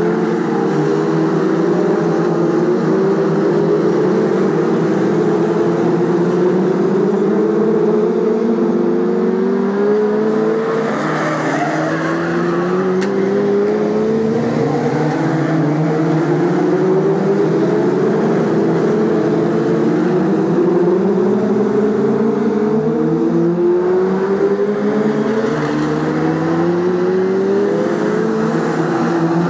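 A pack of BriSCA F2 stock cars racing together on an oval, several engines rising in pitch as they accelerate along the straights and falling back as they lift for the bends, the cycle repeating every few seconds.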